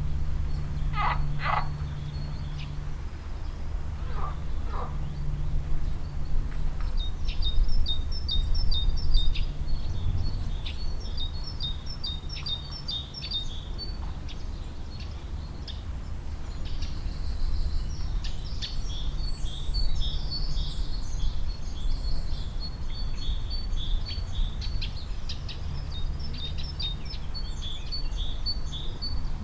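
Pond ambience: a few short croaks from water frogs in the first five seconds, then a small bird's rapid, high chirping from about seven seconds on, over a steady low hum.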